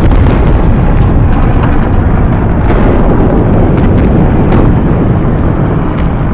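Sound-effect mix of heavy battle: a continuous loud, low rumble of explosions and artillery, with scattered sharp cracks, most of them bunched about a second and a half in.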